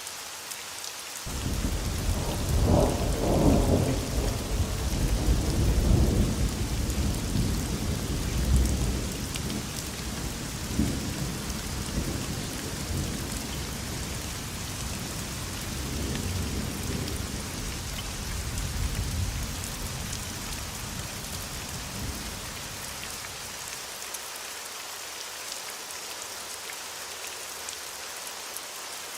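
Steady rain falling, with a long roll of thunder that breaks in suddenly about a second in, is loudest over the next several seconds, and rumbles away over about twenty seconds.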